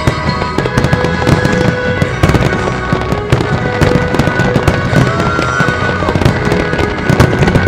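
Fireworks display: a dense barrage of shell bursts and crackling stars, many sharp bangs in quick succession, over music with held tones.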